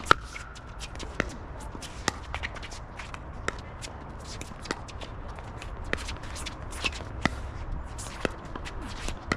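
Pickleball rally: paddles striking a plastic pickleball back and forth, sharp pops about once a second with the loudest just after the start, and sneakers shuffling and scuffing on the hard court between hits.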